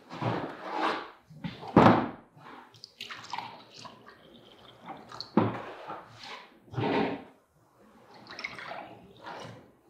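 Brackish water being poured from a plastic pitcher into a small beaker and then from the beaker into a glass mason jar, with sharp knocks as the containers are set down on the table, the loudest about two seconds in.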